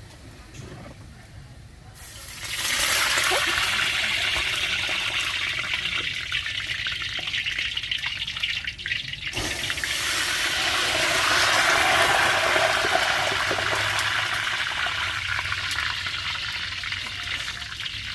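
Water running and splashing in two long stretches, starting abruptly a couple of seconds in, cutting off briefly about halfway, then running again until near the end.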